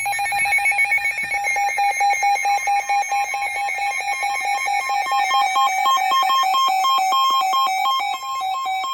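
Weather radio alert alarm: a loud electronic tone that warbles between two pitches with a fast pulsing beat. It is the alert that comes before a new severe thunderstorm warning broadcast.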